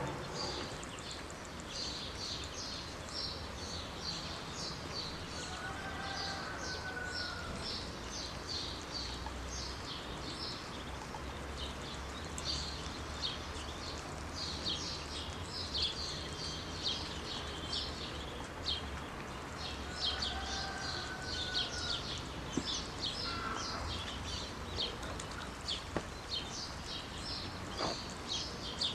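Muscovy ducklings peeping continuously in quick, high chirps. Twice a longer, lower arching call sounds.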